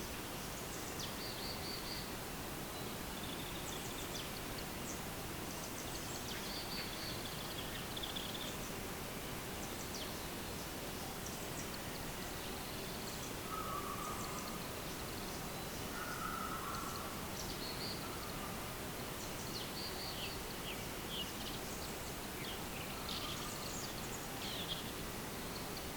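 Small birds chirping on and off with short, high calls over a steady outdoor background hiss, with a few lower calls in the middle.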